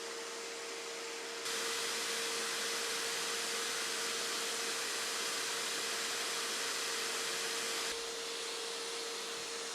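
Bissell SpotClean ProHeat portable wet upholstery cleaner running steadily with a constant motor hum. About a second and a half in, its sound grows louder and hissier; it falls back to the plain running sound near the end.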